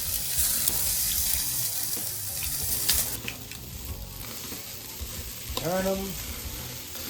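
Butter-basted chicken thighs sizzling on a hot charcoal grill grate. The sizzle is loudest in the first three seconds and eases after, with a few light clicks.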